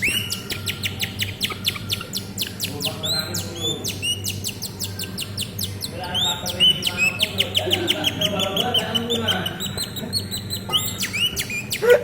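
Domestic canary singing a long, unbroken song of fast repeated notes and rattling trills, with rising chirps among them, the bird in full, vigorous song. A steady low hum runs underneath.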